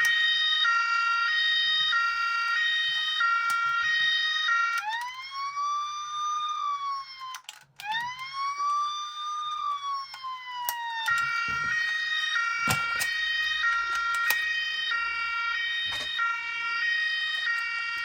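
Playmobil 5337 toy airport fire engine's electronic siren: a two-tone hi-lo siren switching pitch about every half second, changing about five seconds in to a wail that rises and falls twice, then back to the two-tone pattern near eleven seconds. A few sharp clicks sound over it.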